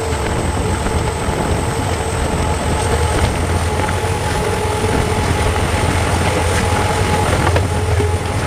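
Steady low hum of a WDP4's EMD two-stroke diesel engine, with the running noise of the coaches rolling over the track and a few faint clicks, heard from the first coach behind the locomotive.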